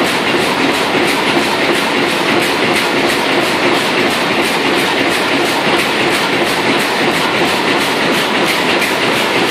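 HSLJ-450X2 high-speed bag-on-roll vegetable bag making machine running at production speed: a loud, steady mechanical clatter with a regular beat about four times a second, in step with its rate of 240 bags a minute per line.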